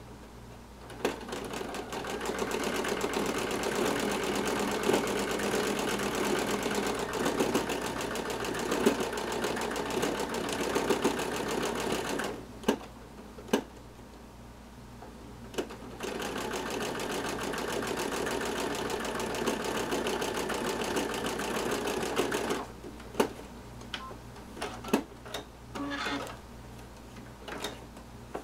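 Home sewing machine stitching free-motion embroidery fill on a cap, running steadily for about eleven seconds, stopping, then running again for about six seconds. Sharp clicks and taps sound in the pause and after the second run.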